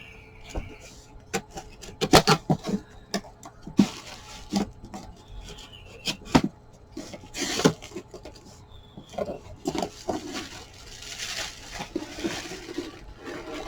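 A cardboard box being opened by hand: sharp knocks and scrapes of cardboard, with several short rasping tears and rustles as filament packing tape is pulled away.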